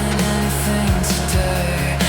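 Background music with held bass notes and a regular drum beat.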